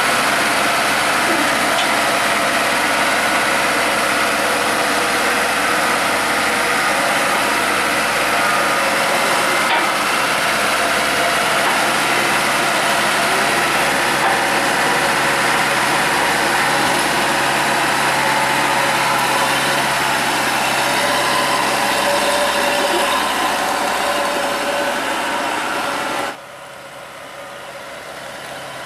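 Kubota DCX 100 rice combine harvester's engine running steadily at a constant speed. A little over two seconds before the end the sound drops sharply to a much quieter level.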